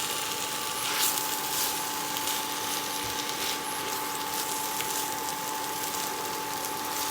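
Vegetable and soy-curl filling sizzling in a frying pan, with a few light clicks and scrapes of a utensil stirring it through the sauce, over a steady hum.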